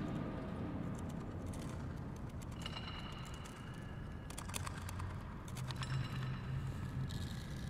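Improvised sound-art playing inside the resonant geodesic dome of a radar station. Scattered clicks and taps, a high ringing tone held for about a second and a half, and low steady tones underneath that grow stronger about two-thirds of the way in.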